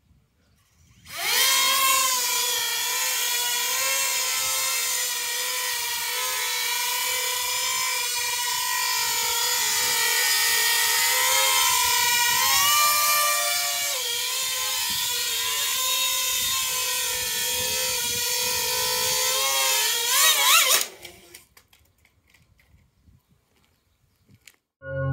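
Coaxial drone's two stacked propeller motors spinning up about a second in and whining steadily in hover, their pitch wavering. Around the middle the two rotor tones split apart in pitch during a loss of yaw control, and near the end the motors rise briefly and cut off suddenly.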